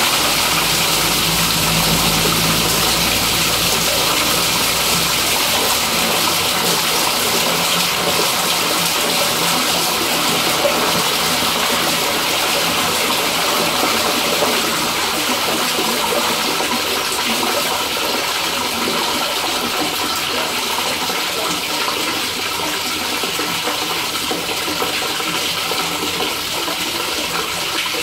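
Backed-up waste water pouring out of an inlet pipe and along the channel of a drain inspection chamber, draining away now that the tissue blockage has been cleared. The flow slowly eases.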